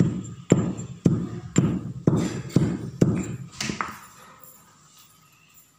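Stone pestle pounding in a stone mortar, about two strikes a second, eight in all, stopping about four seconds in.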